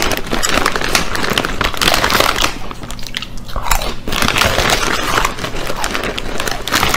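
A man chewing a mouthful of Ruffles potato chips, with continuous loud, crunchy chewing.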